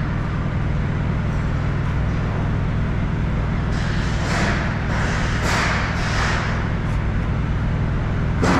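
Steady low hum of an idling truck engine. Between about four and seven seconds in comes a run of rustling swishes from a nylon ratchet strap being handled and rolled up, and a short knock near the end.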